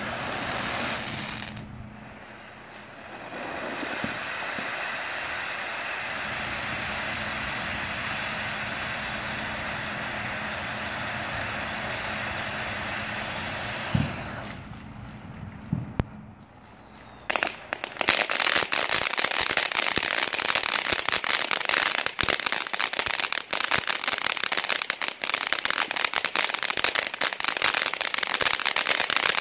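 Ground fountain fireworks spraying sparks with a steady hiss, which dies away about fourteen seconds in with a couple of sharp pops. From about seventeen seconds a fountain throws crackling sparks, giving a dense, rapid crackle.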